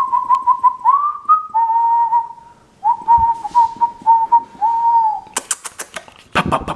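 A person whistling a warbling tone, held steady with a brief upward slide and short breaks, to get a puppy's attention. Near the end comes a quick run of sharp clicks.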